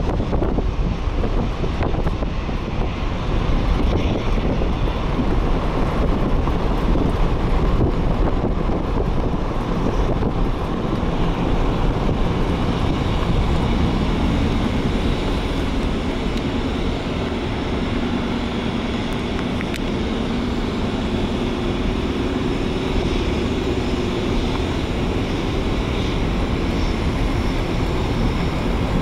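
Car driving at road speed, with steady tyre and wind noise rumbling and wind buffeting the microphone. A faint low hum comes in about halfway through.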